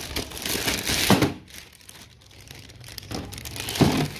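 Clear plastic packaging bag crinkling as it is pulled off a piece of equipment, with a thud about a second in and another, louder one near the end.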